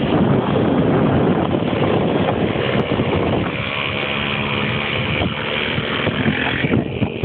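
Moped engine running under way, buried at first in heavy wind rush on the microphone. From about halfway in, a steadier engine note with a higher whine comes through, and the whine cuts off near the end.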